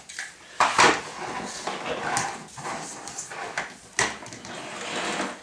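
Plastic clicks, knocks and rattles from handling the body and attachments of a bagless vacuum cleaner, with a sharp knock just under a second in and another about four seconds in.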